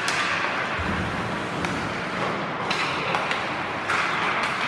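Ice hockey play on the rink: skates scraping the ice in hissing bursts, three of them, with a few sharp clicks and knocks of sticks and puck in between.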